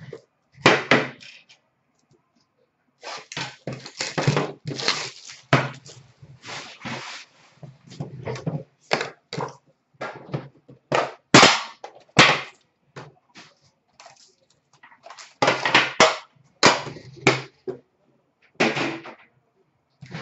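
Hands handling a hockey card box and its foil packs on a glass counter: an irregular run of knocks, clatters and wrapper crinkling as the box is opened and packs are taken out.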